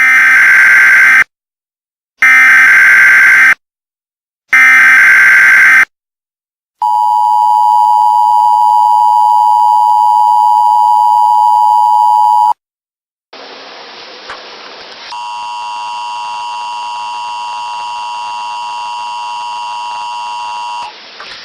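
Emergency Alert System test tones. First come three short digital header bursts, each about a second long, then the long two-tone attention signal of 853 and 960 Hz for about six seconds. After a short gap comes a quieter hiss, then a quieter steady tone.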